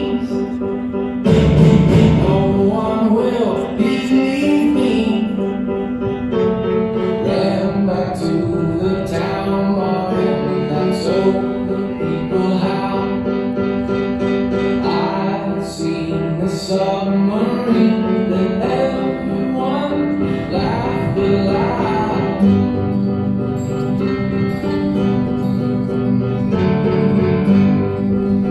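Recorded dance backing music: a song with a sung melody over guitar and other instruments, playing without a break.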